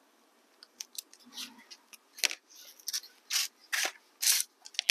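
A hobby knife trimming excess cork roadbed along the edge of a small plywood piece: about a dozen short, crisp scraping cuts, with one sharper click about two seconds in.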